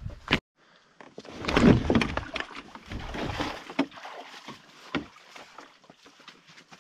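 Sounds of a canoe being handled on the water: a loud rushing, splashy noise, then a few sharp knocks that fade away.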